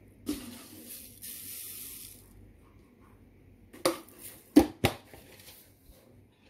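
Salt poured over chicken wings in a steel bowl, a grainy hiss lasting about two seconds. Three sharp knocks follow about four seconds in.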